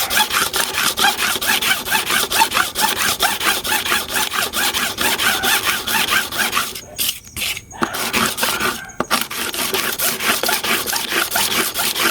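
Metal hair clipper blade rubbed back and forth on smooth sandpaper in quick, even scraping strokes, about four a second, with brief pauses about seven and nine seconds in. The blade's face is being lapped flat to level it before sharpening.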